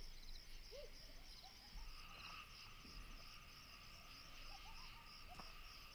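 Faint night ambience of crickets and other insects: a steady, fast-pulsing high trill, with short chirps repeating about every half second.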